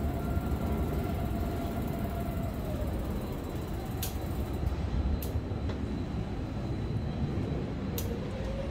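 Steady low rumble of city street traffic, with three faint sharp clicks.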